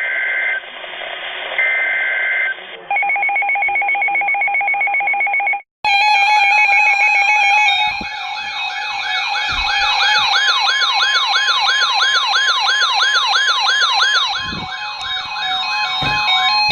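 Emergency Alert System alert over a radio: two short warbling bursts of the digital SAME header, then a steady two-tone attention signal for about three seconds. After a short break comes a loud electronic wailing siren, its pitch sweeping up and down about twice a second, mixed with stepped synthesized tones near the end.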